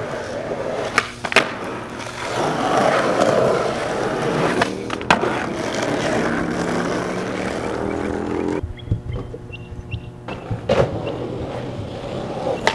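Skateboard wheels rolling over rough, cracked asphalt, with several sharp pops and board landings from flatground tricks scattered through.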